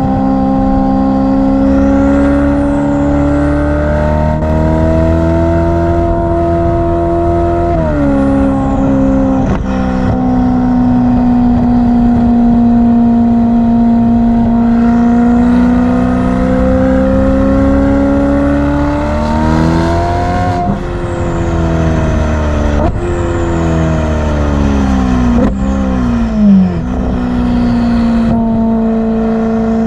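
Ferrari F8's twin-turbo V8 running loud, its revs held, then rising and falling, with sudden drops in pitch as the throttle comes off and a high turbo whistle over the top. There is a short sharp bang near the end.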